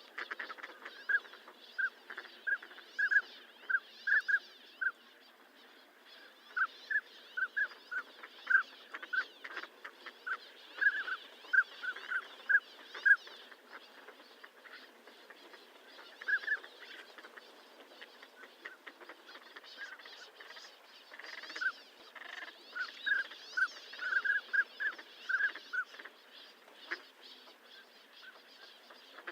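Northern pintails giving short whistled calls, many brief notes in irregular runs with pauses between, over a steady background hiss.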